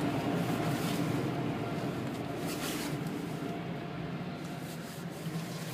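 Steady mechanical drone with a faint hiss, heard from inside a car cabin as the car leaves an automatic car wash; a brighter hiss swells briefly twice, and the whole sound slowly fades.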